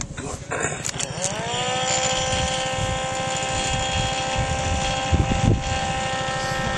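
An electric chimney blower fan on a miniature steam locomotive starts with a few clicks, spins up with a rising whine about a second in, and settles into a steady pitch. It is drawing the fire while the boiler has no steam pressure yet.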